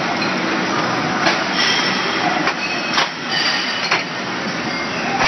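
Automatic CNC lathe with bar feeder running, a steady machine noise with a few sharp metallic clicks, about three over the span.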